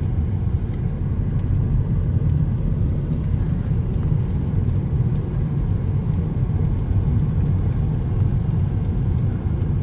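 A moving car heard from inside the cabin: a steady low rumble of engine and tyres on the road.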